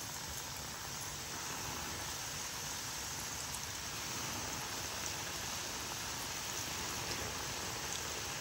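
Flour-coated chicken strips deep-frying in a pan of hot oil: a steady, rain-like sizzle with a few small pops. It grows slightly louder about halfway through as more strips go into the oil.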